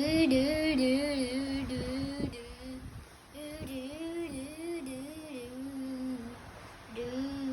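A person imitating a fire truck siren with their voice: a hummed wail that rises and falls about twice a second, broken by two short pauses for breath.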